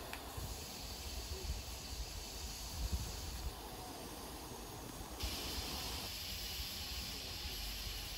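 Steam hissing from a GWR steam locomotive, growing louder about five seconds in, over a low rumble.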